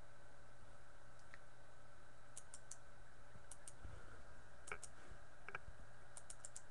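Scattered sharp clicks from working a computer, in small groups of two or three through the second half, over a steady faint hum.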